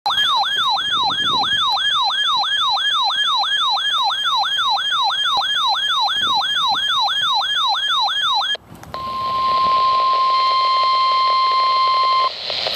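Electronic siren-like alert from a weather radio receiver, sweeping up and down about three times a second, cutting off about two-thirds of the way through. Then the steady NOAA Weather Radio 1050 Hz warning alarm tone over radio hiss, stopping just before the end, the signal that a warning message follows.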